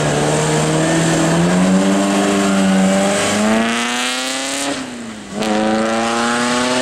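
Vintage Bugatti racing car's engine accelerating away from a standing start, its note rising steadily, then dropping briefly at a gear change about five seconds in before pulling up again.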